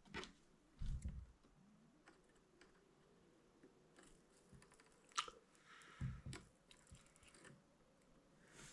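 Faint, scattered handling noises: a few soft knocks and sharp clicks, a couple of seconds apart, over a faint steady hum.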